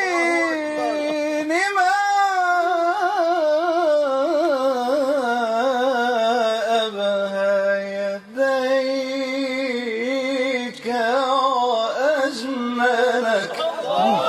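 A solo male voice singing an Arabic devotional song (nasheed) in a long wordless melisma, winding through quick ornamental turns and holding notes. The line sinks to a low held note about halfway through, then climbs back into ornamented phrases.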